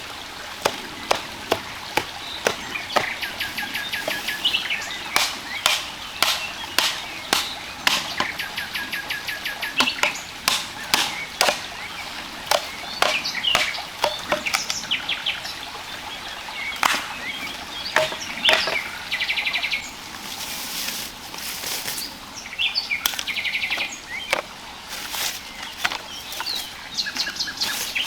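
Birds chirping and trilling, over frequent sharp, irregular clicks or taps that are the loudest sounds throughout.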